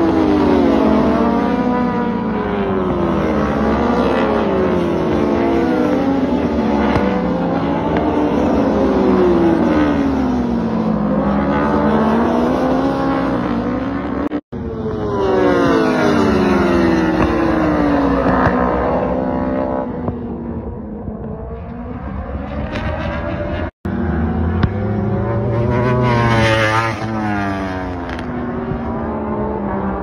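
World Superbike racing motorcycles at full throttle, several at once, their engine notes repeatedly rising as they rev up through the gears and falling as they shift and pass by. The sound breaks off briefly twice.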